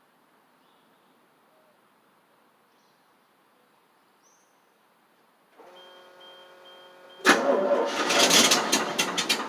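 The 1988 FMC 6000's carbureted engine being cranked by the starter for about two and a half seconds with irregular strokes, not catching: a hard start that the owner traces to no fuel reaching the carburettor. Before it a steady electrical tone with a faint beep comes on with the key.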